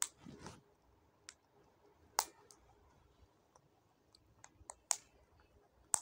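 Green parakeet's beak clicking against a steel feeding plate as it picks up and cracks seeds and lentils: sharp, irregular clicks, about nine in all, loudest about two seconds in and near the end.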